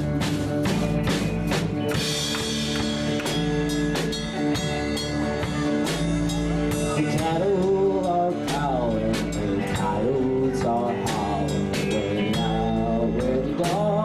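Live country band playing: acoustic and electric guitars, bass and drum kit keeping a steady beat. About halfway through a bending, wavering melody line comes in over the chords.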